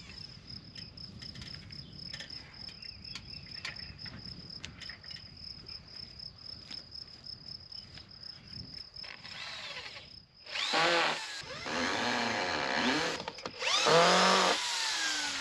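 Cordless drill running in three short runs from about ten seconds in, its whine rising and falling in pitch with each run as it drives into the top of a wooden pole. Before that, a steady high insect trill.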